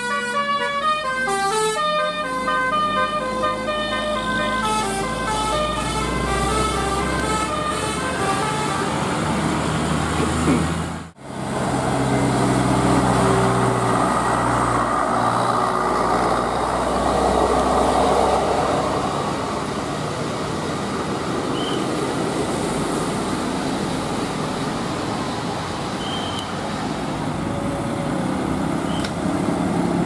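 Bus "telolet" musical horn playing a quick run of stepped notes over the first few seconds, fading as the coach takes the bend. After a sudden break about eleven seconds in, coach engines and road noise as buses pull past.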